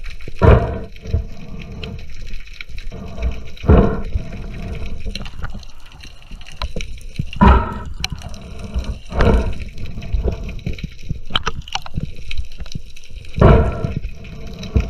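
Underwater sound picked up by a camera in its housing: a steady muffled wash of moving water, with about five louder surges a few seconds apart.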